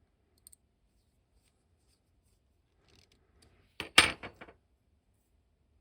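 Small hard plastic action-figure parts and tools handled on a work surface: a couple of faint ticks, light rustling, then a quick cluster of sharp clicks and knocks about four seconds in.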